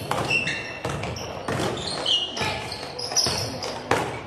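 A basketball bouncing on a gym floor as players dribble and run up the court, with short high sneaker squeaks in between the bounces. The bounces come irregularly, and one sharp bounce is heard near the end.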